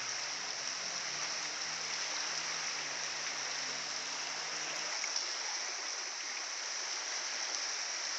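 Floodwater running along a waterlogged street: a steady rushing hiss of flowing water.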